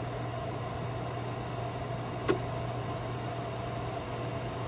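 Steady fan hum from a Mingda Magician X2 3D printer while its hot end heats up, with a single sharp click about two seconds in.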